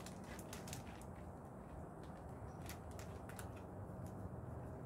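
Faint crunching clicks of a hand pepper grinder being twisted over the fish, in two short bursts near the start and about three seconds in, over a steady low background noise.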